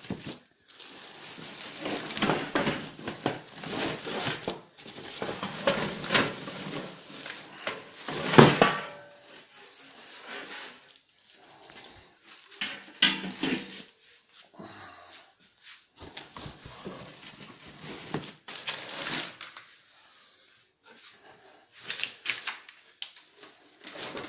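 Plastic bags and paper packing crinkling and rustling as metal smoker parts are handled and unpacked from a cardboard box, in irregular stretches with occasional knocks. The loudest knock comes about eight seconds in.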